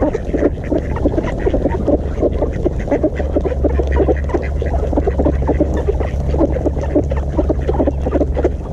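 A flock of ducks quacking and chattering, many short calls overlapping in a rapid, continuous stream, over a low steady rumble.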